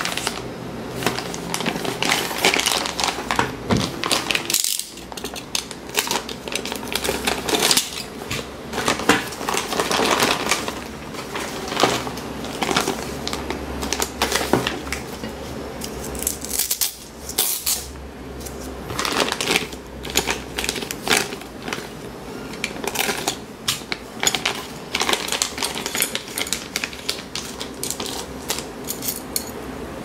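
Plastic packaging bags crinkling and rustling as they are pulled open and handled, with irregular light clicks and clinks of metal tray parts.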